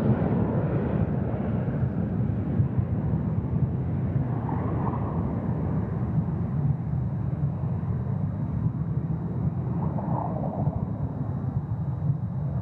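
Jet engines of the BAC TSR2 running steadily on the ground, a low, even rumble.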